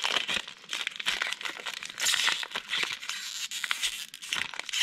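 Foil wrapper of a Panini Mosaic football card pack crinkling and tearing as it is ripped open by hand, a dense run of crackles throughout.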